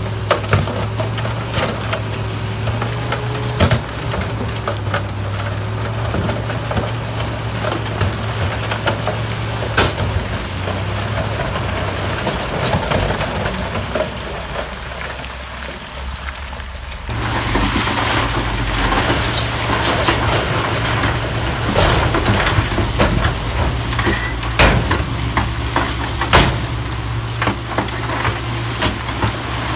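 Heavy diesel earthmoving machinery running, dump trucks and a wheel loader, with a steady engine drone and frequent crunching and knocking of rock. The sound dips for a few seconds and then turns abruptly louder about seventeen seconds in.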